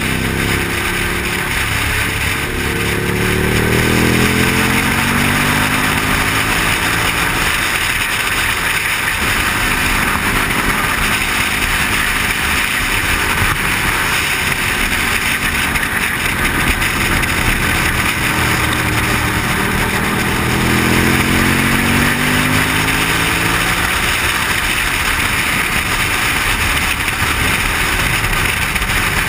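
Motorcycle engine running at speed, its pitch rising as it accelerates over the first few seconds and again about twenty seconds in, under a steady rush of wind noise.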